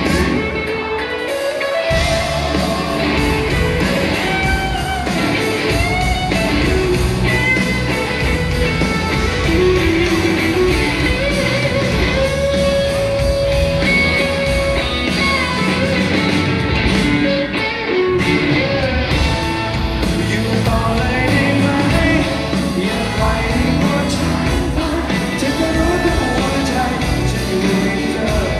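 Live rock band with a horn section playing a song with a singer: electric guitars, saxophone, trumpet and drums. The bass end drops out at the start and the full band comes back in about two seconds in.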